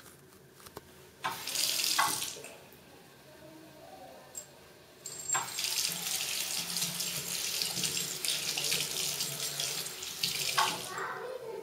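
Infrared sensor faucet switching on and off, running water into a ceramic bathroom sink: a short burst about a second in, then a steady run of about six seconds from around five seconds in that cuts off near the end. The tap is set off by the kitten moving in front of its sensor.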